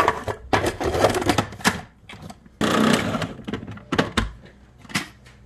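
Food processor with ground nuts in its plastic bowl being set back on and run in short bursts: a long spell of clattering grinding, then a shorter one, and a couple of sharp knocks near the end.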